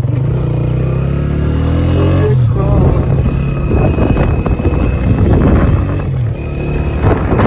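125 cc motorcycle engine running under way, its pitch climbing over the first two seconds, dropping back, then climbing again and dropping back about six seconds in.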